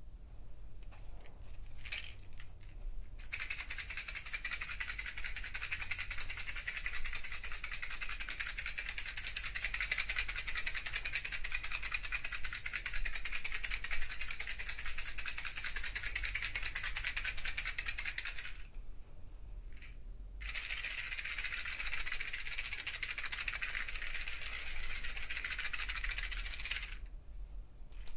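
A fast, dense rattle of many small clicks in two long runs: the first lasts about fifteen seconds, the second about six, with a short pause between them. A few separate clicks come before it.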